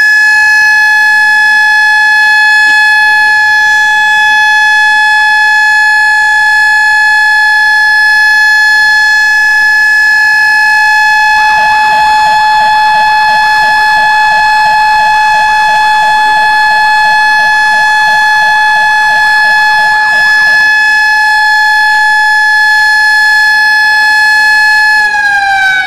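A siren sounds one long, steady, held tone, the siren that marks the moment of the proclamation of Indonesian independence. About halfway in, a second warbling siren joins for several seconds, pulsing three to four times a second. Near the end the main tone starts to wind down and falls in pitch.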